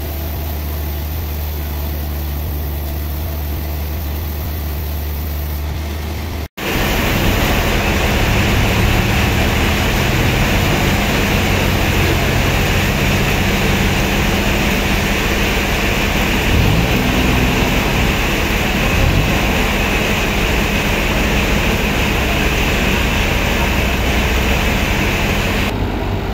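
A steady low machine hum, then, after a cut about six seconds in, a louder forklift engine running with a hiss over it, its pitch rising briefly twice as it revs while carrying a log.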